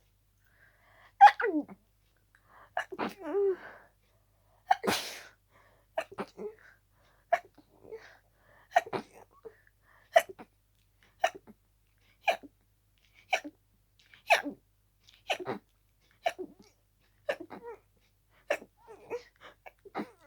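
Person sneezing over and over in a harsh, rapid fit brought on by a cold, with barely a pause to breathe in between. After a few irregular sneezes, they come about once a second.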